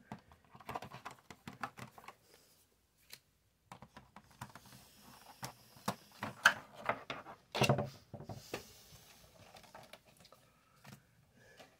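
Hands handling trading cards and a clear plastic blister tray on a playmat: irregular small clicks, taps and plastic rustles, with the loudest clatter between about six and eight seconds in as the tray is moved.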